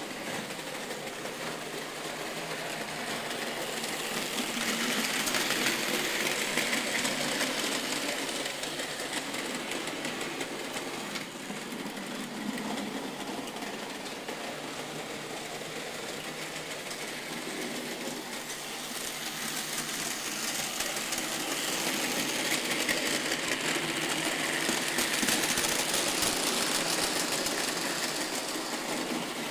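Märklin model trains running on a layout: a steady whirring of small electric motors and wheels on the track, swelling louder twice as trains pass close by.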